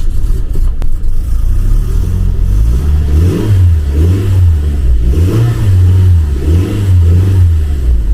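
2012 Ford Focus's four-cylinder petrol engine running after a no-start, just restarted following a throttle-body relearn and reset; from about two and a half seconds in it is revved up and let down several times.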